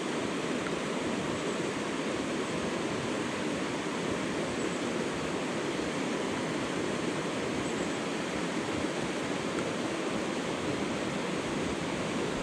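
Fast-flowing mountain river rushing steadily, an even roar of moving water with no breaks.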